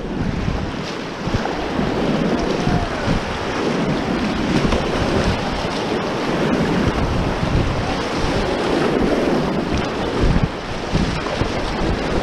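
Ganges river water rushing steadily, with wind buffeting the microphone in uneven gusts.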